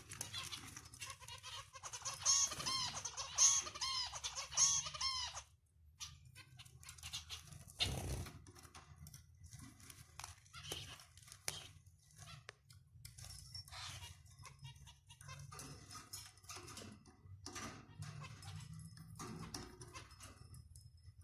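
Cockatiels chirping: a fast, loud run of short repeated chirps for about five seconds, then quieter scattered chirps and clicks. A thump about eight seconds in.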